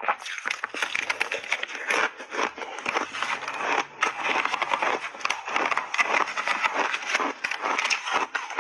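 A big mouthful of frozen shaved ice coated in milk powder being bitten and chewed: dense, irregular crunching.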